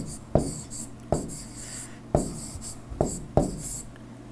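Stylus writing by hand on a tablet screen: sharp taps as the tip touches down for each stroke, with light scratching between them, at an irregular pace of about one to two taps a second.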